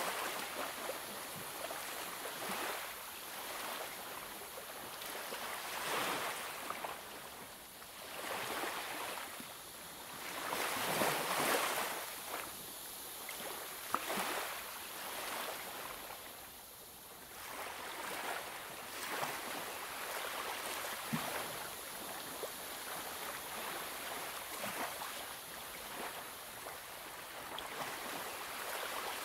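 Coloured pencil shading on paper: a Derwent Inktense pencil scratching across the page, its hiss swelling and fading as the strokes go on.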